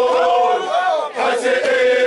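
A group of Zulu men chanting and singing an ijadu dance song together, with a brief break about a second in.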